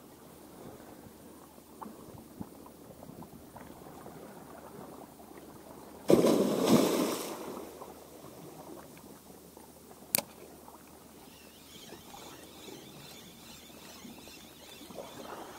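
A bluefin tuna breaking the surface of calm sea water about six seconds in: a loud splash lasting about a second and a half, over faint lapping of water. A single sharp click a few seconds later.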